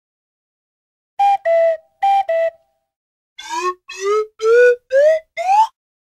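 Cartoon "Hey" sound effect: two pairs of short two-note calls, each falling from a higher note to a lower one, then five quick upward swoops, each pitched higher than the last.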